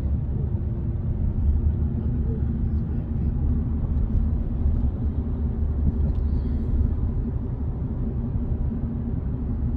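Car driving: a steady low rumble of engine and road noise.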